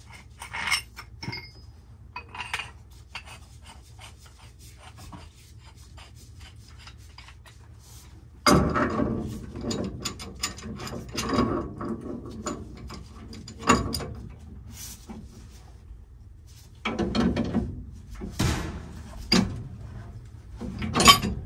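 Pipe wrenches and a cheater bar working a threaded steel pipe union loose: scattered small metal clicks at first, then louder bouts of metal clanking and scraping from about eight seconds in.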